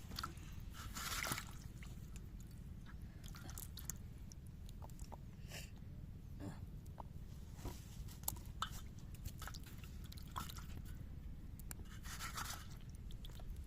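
Faint wet handling noises: scattered small clicks and squishes, with two brief splashy swishes about a second in and near the end, over a low steady rumble.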